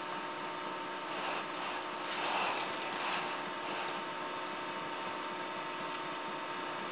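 Faint scraping and rustling of copper wire being twisted by hand around a resistor lead to make a solid joint. Under it runs a steady hiss with a faint steady tone.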